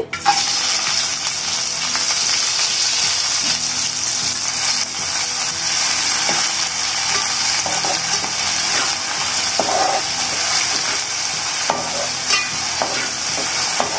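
Dried prawns sizzling in hot oil in a metal pan, the sizzle setting in at once as they are tipped in. A metal spatula stirs them, scraping and tapping against the pan now and then.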